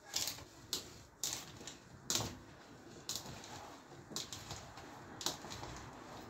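Cubes of raw plantain clicking and knocking against a ceramic bowl as a hand picks through them, about a dozen sharp irregular clicks over a soft handling rustle.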